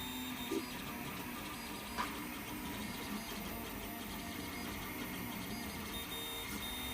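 Duplicator 5 3D printer running mid-print: its motors whir with steady tones as the print head moves, with a small click about two seconds in.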